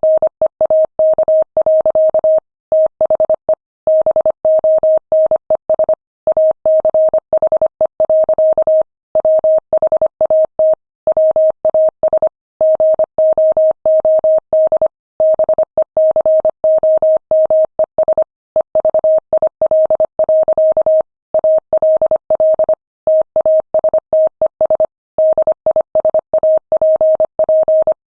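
Morse code at 25 words per minute: a single mid-pitched beep keyed rapidly on and off in short dits and longer dahs, with brief pauses between letters and words.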